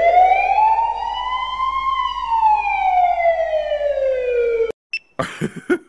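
A single siren-like wail: one steady pitched tone that rises slowly for about two seconds, falls for about three, and cuts off abruptly near the end. Short, choppy sounds follow right after.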